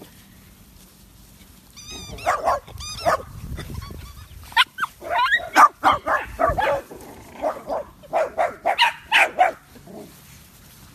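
Small dogs barking and yipping in a quick string of short calls, starting about two seconds in and dying away near the end.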